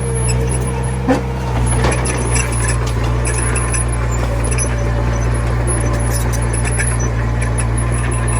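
Komatsu mini bulldozer's diesel engine running steadily under load, with a sharp knock about a second in and the engine growing a little louder just after; light high metallic clinks come and go over it.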